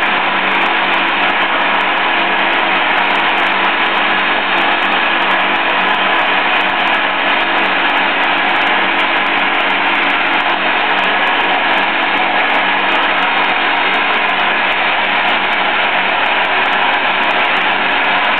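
Vacuum evaporator running steadily while its concentrate is drained: a constant machine hum under a loud, even rushing noise.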